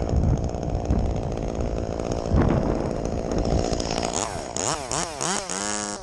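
Chainsaw running steadily at speed, then revved up and down several times in quick succession over the last two seconds before settling.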